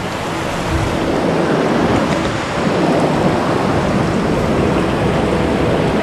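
Fast-flowing river rushing over rocks, a loud, steady rush of water.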